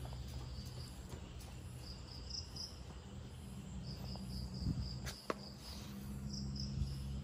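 Crickets trilling steadily in the background, with a single sharp click about five seconds in.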